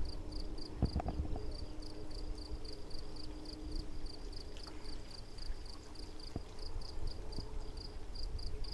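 Insects chirping steadily in a fast even pulse, about four or five high chirps a second, with a faint tap about a second in.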